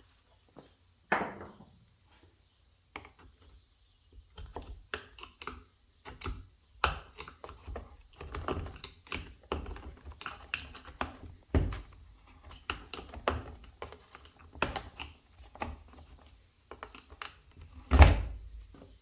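Hands working on the plastic and metal parts of a Stihl FS 56 RC string trimmer during carburetor removal: irregular clicks, taps and rattles, with a few louder thunks about a second in, midway and near the end.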